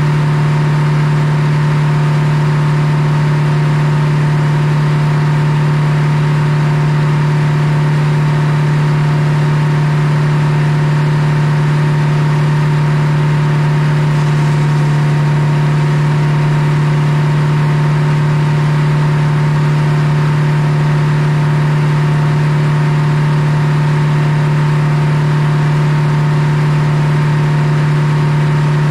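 Old belt-driven circular sawmill running: the drive and the spinning head saw make a loud, steady hum that holds the same pitch throughout, with no change in load.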